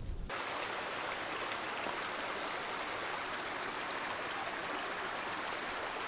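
Steady rush of running water, starting abruptly about a quarter second in.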